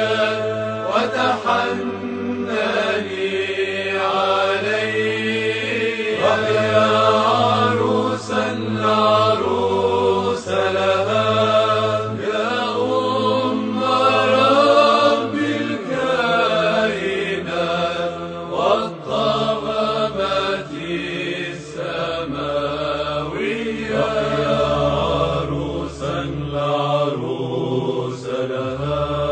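Orthodox church chant: a sung melodic line over a steady held low drone, which drops to a lower note about halfway through.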